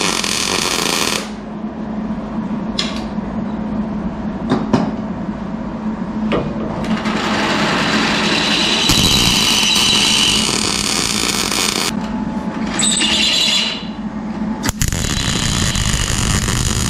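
MIG welder arc crackling and hissing as a weld is laid on a steel accelerator pedal arm. It comes in several bursts: a short one at the start, a long one of about five seconds in the middle, and more near the end, with a steady low hum and a few sharp clicks in the pauses.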